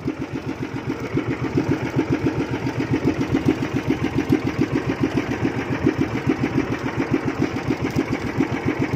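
Small fishing bangka's engine running steadily, a rapid, even chugging.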